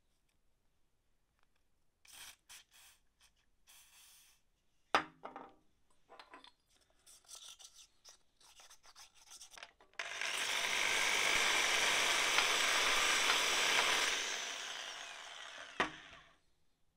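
Sandpaper on an improvised hone rubbing and scraping inside the bore of a Triumph TR7 clutch master cylinder, in short, uneven strokes with a sharp knock about five seconds in. It is being used to clean up the bore. About ten seconds in, a loud, steady rushing noise starts suddenly, lasts about four seconds, then fades out.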